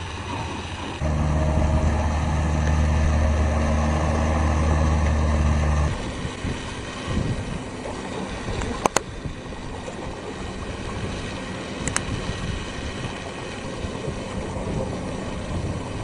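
Motorboat engine idling with a steady low hum that stops about six seconds in. Wind and water noise follows, with two sharp clicks.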